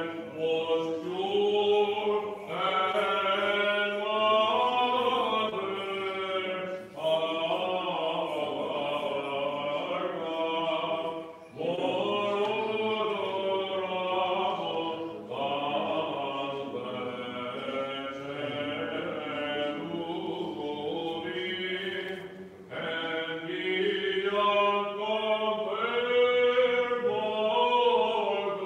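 Unaccompanied Byzantine chant, sung in long melodic phrases with short breaths between them.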